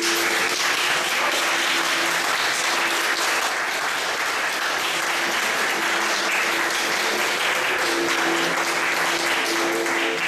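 Crowd applauding: dense clapping that starts suddenly and keeps up steadily, thinning out near the end, with music playing quietly underneath.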